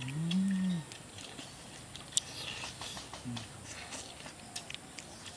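A man's short voiced sound of enjoyment, about a second long, rising then falling in pitch, right at the start. Then scattered small clicks and smacks of two people biting and chewing roasted chicken legs, with a brief softer vocal sound about three seconds in.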